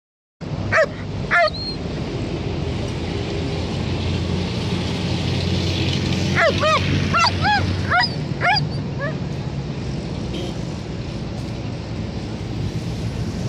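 German shepherd barking: two barks about a second in, then a quick run of about seven barks between about six and nine seconds in. A steady low engine hum from road traffic runs underneath.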